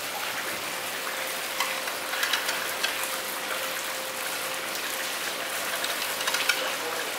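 Steady hiss of background noise, with scattered light clicks and knocks and a faint steady tone.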